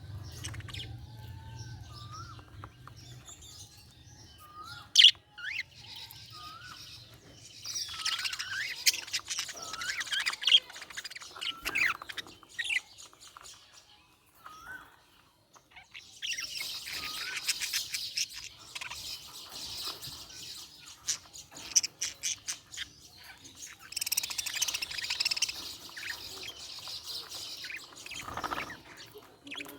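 Budgerigars chirping and warbling in bursts of rapid chatter separated by short quieter gaps, with a few short rising whistles near the start.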